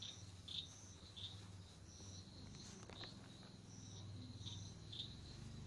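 Faint background chirping: short high chirps at two alternating pitches, about two a second, over a low steady hum.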